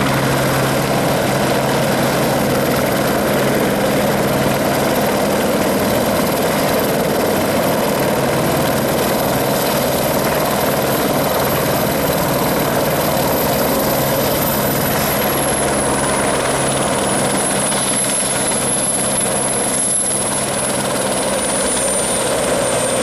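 Eurocopter AS355 Twin Squirrel twin-turbine helicopter hovering and setting down: steady rotor and engine noise with a thin high turbine whine that drops in pitch about two thirds of the way in and again near the end.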